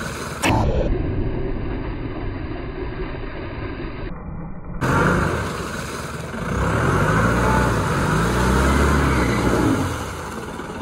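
Vehicle engine running while driving, its pitch rising and falling as it revs in the second half. The sound changes abruptly about half a second in and again about five seconds in, where the recording is cut.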